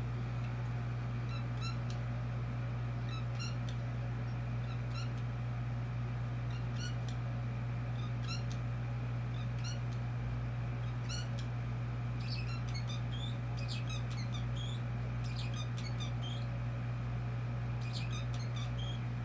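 A cat chattering: short runs of quick, high clicking chirps every second or two, coming thicker from about twelve seconds in, over a steady low hum.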